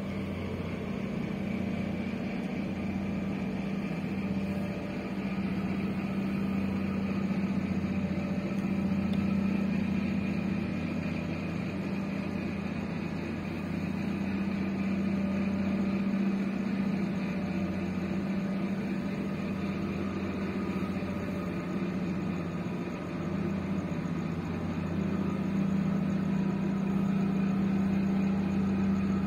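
Steady low drone of a large container ship's engines as it passes close by, a deep even hum that swells a little and eases now and then.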